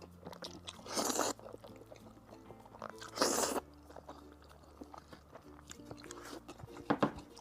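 Close-miked eating of chewy noodles in soybean-paste sauce: two loud, noisy slurps, about a second in and about three seconds in, with soft chewing and mouth clicks between. Quiet background music runs underneath.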